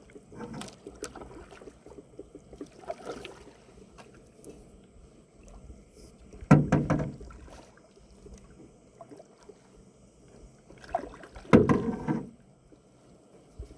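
Paddling a canoe: paddle strokes through the water, faint at first, with two louder splashing strokes about six and a half and eleven and a half seconds in.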